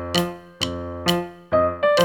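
Background music: a piano or electric-piano melody with notes struck about twice a second.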